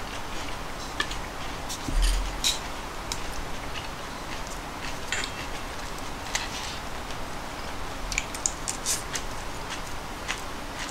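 Chopsticks clicking and tapping against dishes during a meal: scattered light clicks over a steady background hiss, with a soft bump about two seconds in.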